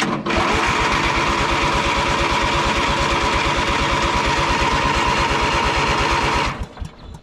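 Briggs & Stratton 19.5 hp engine on a Craftsman LT1000 riding mower being turned over by its electric starter at an even pace for about six seconds without catching, then let go. It is a failure to start that the owner puts down to bad fuel.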